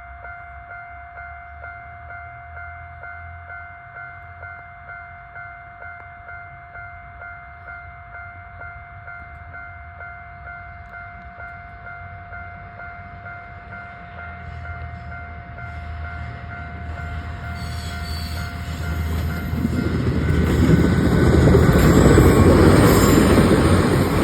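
Japanese level-crossing alarm ringing with a steady electronic ding about twice a second. From the middle on, a train approaches and passes over the crossing, growing loud and drowning out the alarm, loudest a couple of seconds before the end.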